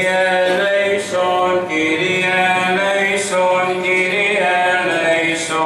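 Byzantine chant: male chanters singing a Greek Orthodox vespers hymn, a slow melody of long held notes moving step by step over a steady low drone note (the ison).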